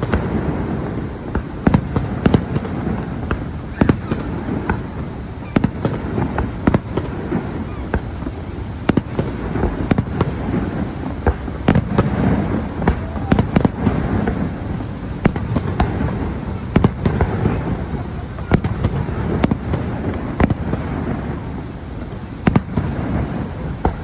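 Fireworks display: many bangs and pops at irregular intervals, some in quick clusters, over a steady background rumble.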